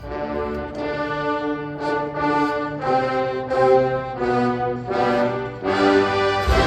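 Marching band brass section playing a phrase of held chords, each swelling and changing about every second. The full band with low drums comes back in loudly at the very end.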